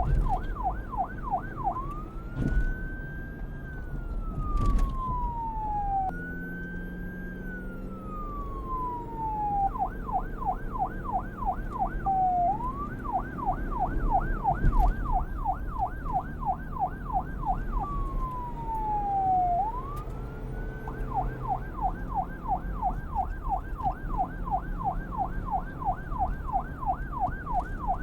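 Police car's electronic siren switching between a fast yelp, about three sweeps up and down a second, and a slow wail that rises and then glides down over a few seconds. It returns to the yelp near the end, over a low rumble.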